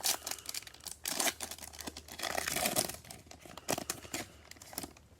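A trading card pack wrapper being torn open and crinkled by hand, in irregular crackles that are busiest in the first three seconds and thin out towards the end.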